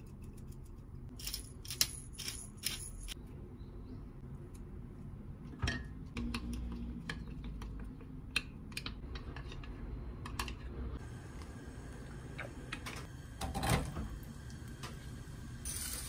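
Kitchen prep sounds: scattered light clicks, taps and clinks of utensils and containers being handled, with a louder knock about two seconds before the end.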